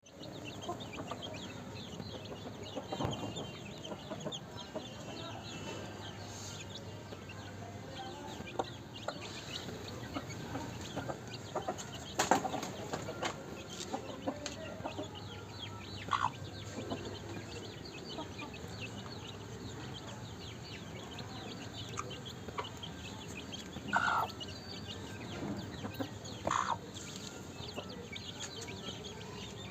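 Aseel chicks peeping and cheeping without a break, with a few louder calls standing out near the middle and towards the end.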